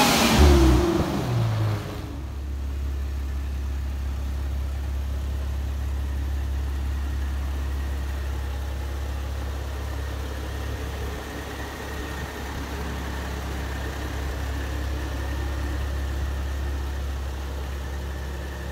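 2015 Jeep Wrangler's 3.6-litre V6 with a Sprintex twin-screw supercharger: the engine note falls away as it passes close by, then settles into a steady idle with a faint high steady whine for the rest.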